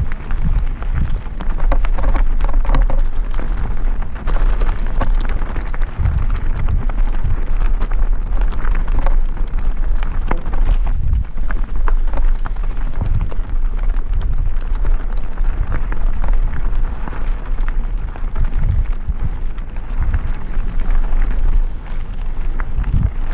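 Mountain bike ridden fast down a gravel and dirt forest singletrack, heard from a camera on the bike or rider: tyres crunching over gravel with frequent short rattles and knocks from stones and the bike, over a steady low rumble of wind buffeting the microphone.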